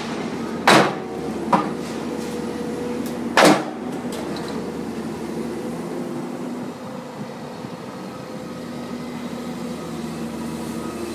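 Komatsu hydraulic excavator engine running steadily, with two loud crashes of metal and debris as its bucket and thumb tear into the building's steel framing, one less than a second in and one about three and a half seconds in, and a lighter clank between them.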